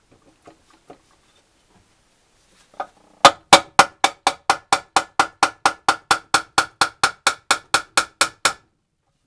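A hammer tapping on the aluminium side cover of an NSU Special Max 250 engine: about two dozen quick, even strikes, roughly four a second, each with a ringing metallic tone, starting about three seconds in after a few faint handling clicks.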